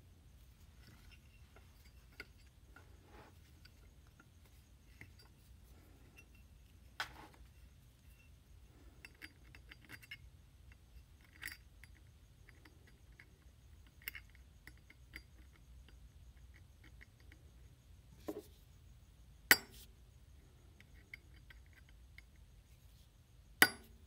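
Small metal clinks and ticks as a hand tool works at the hinge of a Zippo lighter's chrome-plated brass case, with a few sharp clicks; the loudest two come in the second half, about four seconds apart.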